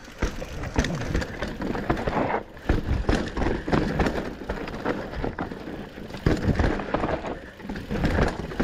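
Mountain bike rolling fast down a dirt trail: tyre rumble with frequent knocks and rattles of the bike over bumps, and wind on the microphone.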